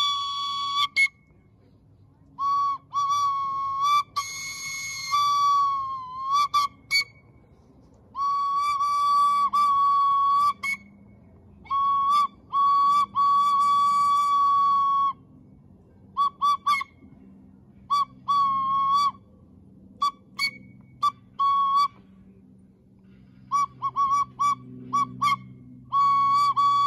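A single-note train whistle, sounded as the whistle of toy engine No. 6020. It gives a long series of short toots and longer held blasts, some toots in quick runs, with a slight dip in pitch where some notes begin and end.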